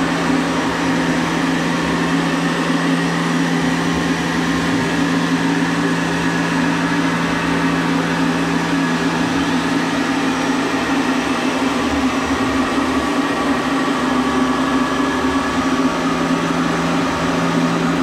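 Tormach 770M CNC milling machine's spindle running at a steady speed while a 90-degree chamfer mill cuts along the edges of a 6061 aluminium part: a constant low hum with higher steady whines over it.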